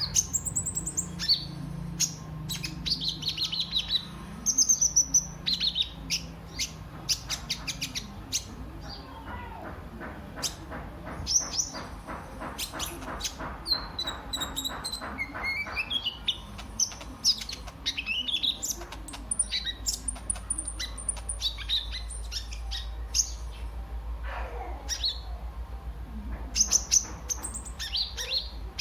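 Kolibri ninja sunbird singing: a string of high, rapid chirps and sweeping whistles, with a fast rattling trill in the middle. A low hum runs underneath.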